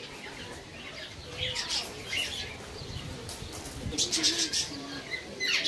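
A flock of budgerigars chattering: many overlapping short chirps and warbles, swelling into louder bursts about one and a half seconds in and again about four seconds in.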